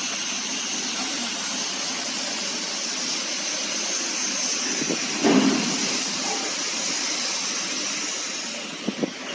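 Large industrial washing machine with a stainless steel drum running, a steady hissing rush with a single thud about five seconds in and two short knocks near the end.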